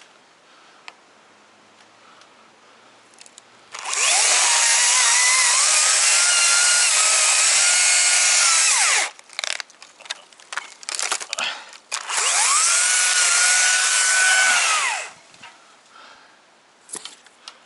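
Chainsaw running at full throttle in two bursts, about five seconds and then three seconds long, its pitch rising as it revs and falling away as the throttle is released after each; the saw is cutting up a thick fallen tree. Scattered knocks and clicks come between the bursts.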